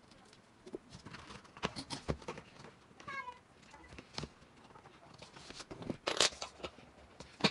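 Plastic skirting board being handled and pressed against the wall at floor level: scattered light clicks, taps and scrapes, loudest about six seconds in. A short falling squeak about three seconds in.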